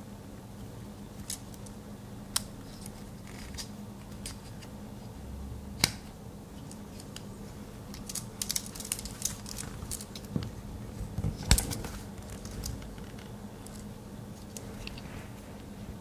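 Victorinox Explorer Swiss Army knife being handled, its blades and tools snapping open and shut with scattered sharp metallic clicks, a busy cluster about halfway through, over a steady low hum.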